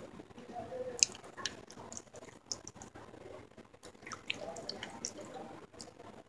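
Close-up mouth sounds of a person chewing pieces of clay pot: scattered small crunches and wet clicks, the sharpest about a second in.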